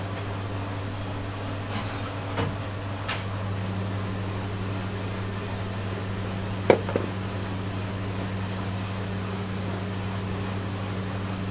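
Steady low hum of kitchen machinery, with a few light clicks about two seconds in. A little past the middle comes a sharp metallic knock and a smaller one just after, as a stainless-steel bowl of dry ingredients is tipped and tapped against the rim of the steel mixing bowl.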